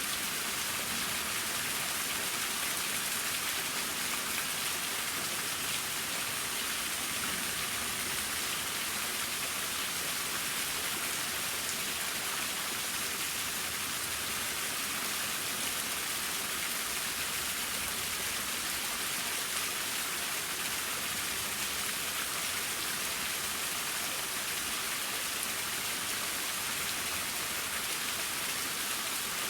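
Mountain waterfall: water falling and splashing in a steady, unbroken hiss.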